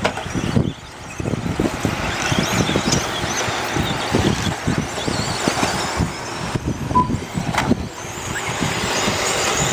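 1/10-scale nitro RC stadium trucks racing around a dirt track, their small engines whining and revving up and down.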